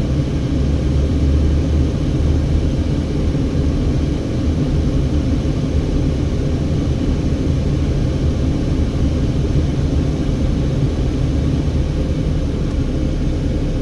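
A car driven along a road, a steady low rumble of engine and tyres.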